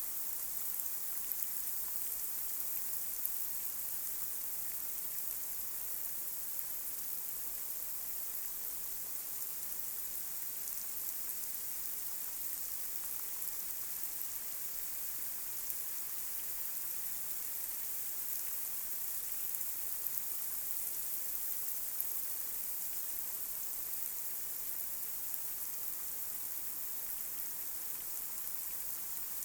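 Light rain falling on a street: a steady high hiss with scattered drop taps.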